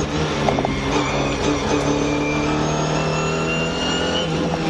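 Ford Escort RS2000 Mk2 rally car's engine pulling hard at steady, high revs, heard from inside the cabin, with the pitch holding nearly level as the car runs at speed. The revs dip slightly near the end.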